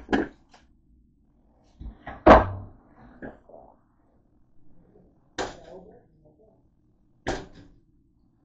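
Handling of a plastic bread bag and a white four-slice toaster: about five sharp clunks and knocks, the loudest about two seconds in, with a little faint rustling between them.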